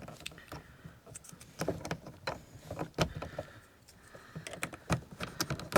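Plastic door-trim parts of a Lada Kalina being handled and pressed into place on the door card: a series of light clicks and knocks, with one sharp snap near the end as a piece clicks home.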